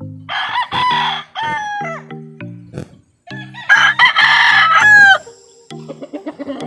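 Gamecock roosters crowing: two long crows, the second louder, each falling in pitch at the end, over background music with a repeating low pattern.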